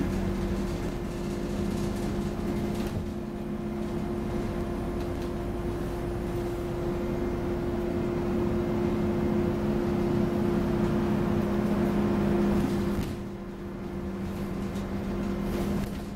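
Scania OmniCity double-decker bus engine and drivetrain heard from on board while the bus is under way: a steady drone that builds a little, dips about thirteen seconds in, then picks up again.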